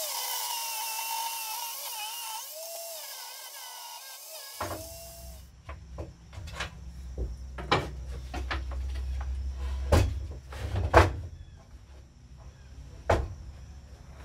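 Table saw running while a 2x4 is ripped into strips, its high whine dipping and recovering in pitch. After about four and a half seconds it gives way to sharp wooden knocks and clatter as the cut strips are handled and stacked on the saw table, over a low hum.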